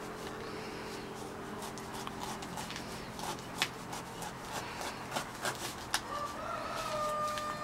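Kitchen knife cracking into the tough, spiky husk of a durian, a scatter of short sharp clicks and crackles. About six seconds in, a long, steady animal call begins.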